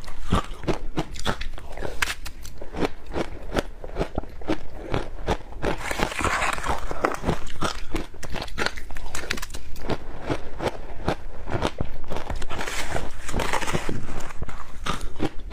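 Ice being bitten and crunched between the teeth: a continuous run of sharp cracks, several a second.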